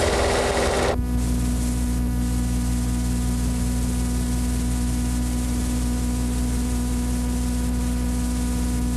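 Steady electrical mains hum with a faint hiss on the soundtrack. A louder rushing noise cuts off about a second in.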